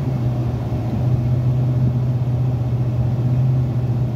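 Steady engine and road noise heard from inside a vehicle's cabin while driving on the highway, with a strong, even low hum.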